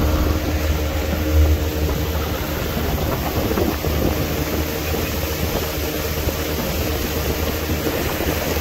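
An engine idling steadily: an even low hum with steady tones over it.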